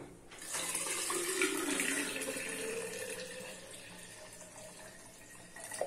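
Water poured from a jug into a glass pitcher: a steady pouring splash that starts about half a second in and fades away over the last two seconds.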